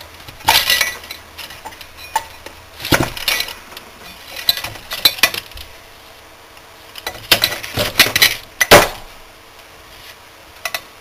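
Scattered clicks and clinks of wires, crimp connectors and small metal and plastic parts being handled inside an opened industrial soft starter. The knocks come in loose clusters, with the loudest one about three quarters of the way through.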